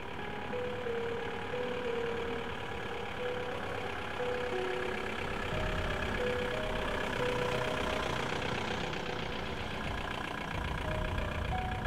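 Background music, a slow melody of short held notes, over a car engine running. The engine's low rumble grows stronger about halfway through.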